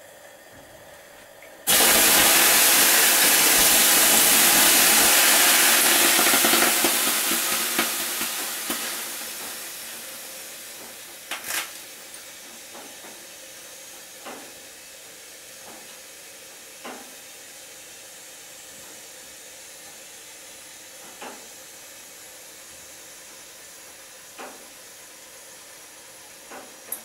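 Water thrown onto the hot stones of a sauna stove: a sudden loud hiss of steam about two seconds in, holding for a few seconds and then dying away slowly. A handful of sharp ticks follow, a few seconds apart.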